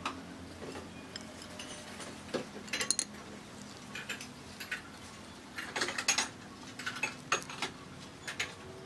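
Hands rolling a rice-paper spring roll on a plate: scattered light clicks and crackles in small clusters as the paper and filling are folded and pressed.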